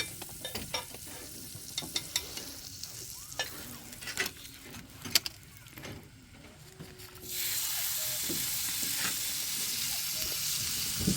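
Light clicks and taps of utensils against a pan, then about seven seconds in a steady sizzle starts suddenly as food goes onto the hot pan.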